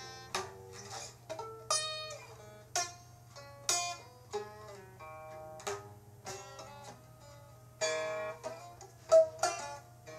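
A plucked string instrument playing single notes and short runs, each note starting sharply and ringing away, one note near the end louder than the rest. A steady low hum runs underneath.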